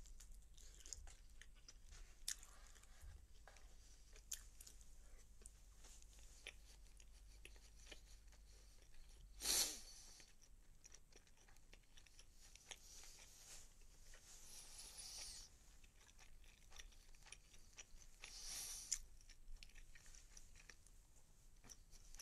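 Faint close-up chewing and crunching of food near a phone microphone, with small mouth clicks. A brief, louder noisy burst comes about halfway through.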